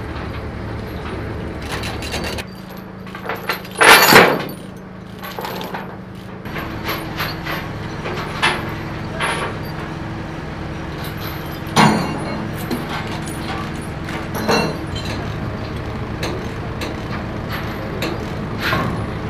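Sound of tanks being chained down on rail flatcars: an engine running steadily under metal clanks and chain rattles. The loudest sounds are a short, sharp noise about four seconds in and two sharp clanks later on.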